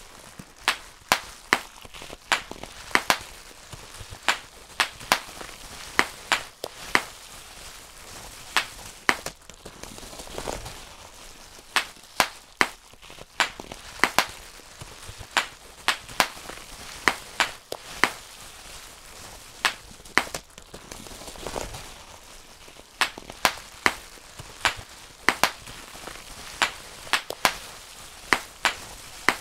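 Bubble wrap being popped by hand, one bubble at a time: sharp, separate pops at an uneven pace of about one or two a second.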